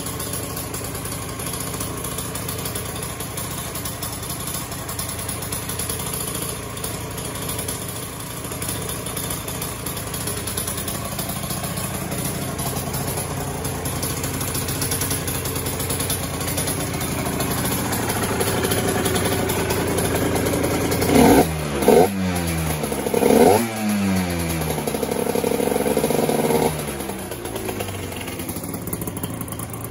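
Aprilia RS 125's two-stroke single-cylinder engine idling, then blipped three times in quick succession a little over twenty seconds in. It is held at higher revs for a few seconds, then drops back to idle near the end.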